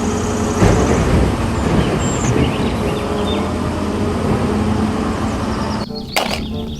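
Heavy vehicle engine running with a loud, noisy rumble and a steady low hum, cutting off abruptly about six seconds in.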